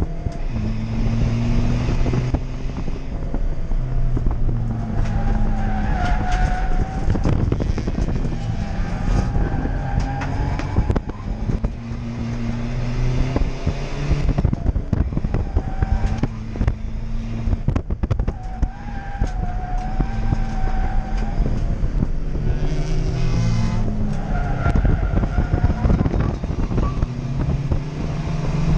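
Toyota Yaris D-4D turbodiesel race car's engine heard from inside the stripped cabin, its revs rising and falling through the gears as it laps. Its tyres squeal briefly in several corners.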